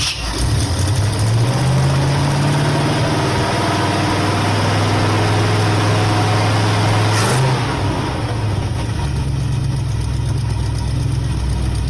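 Pontiac 350 V8 running on a freshly installed Edelbrock four-barrel carburetor, first at a high fast idle. About seven seconds in there is a short sharp noise, and the engine drops to a lower idle.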